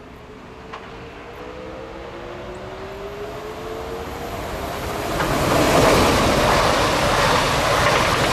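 A DB Regio Stadler Flirt 3 (Br 429) electric multiple unit approaches and passes close by. At first there is a faint whine rising in pitch. From about five seconds in, the loud rolling noise of its wheels on the rails takes over as it goes by.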